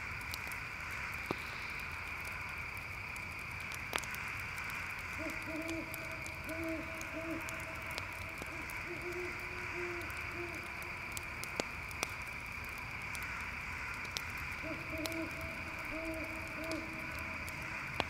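An owl hooting in two runs of short, low hoots, over a steady chorus of crickets and the sharp pops and crackle of a campfire.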